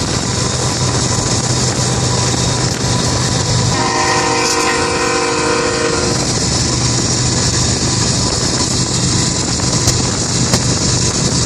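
A GE diesel locomotive's multi-chime air horn sounds once for about two seconds, around four seconds in, over steady road and wind noise from a moving car. A low steady hum runs underneath.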